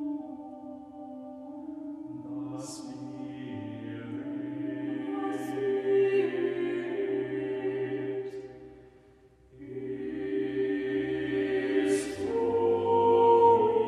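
Small mixed SATB chamber choir singing unaccompanied in a slow tempo, holding soft chords with short hissing 's' consonants from the sung words. About nine seconds in the voices die away almost to silence for a moment, then come back and swell louder toward the end.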